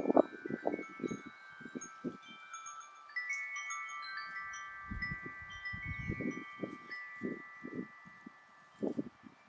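Metal wind chimes ringing, several tones overlapping and hanging on, with a fresh cluster of strikes about three seconds in and brief high pings above them. Irregular low rumbles of wind come and go beneath the chimes and are loudest at the start.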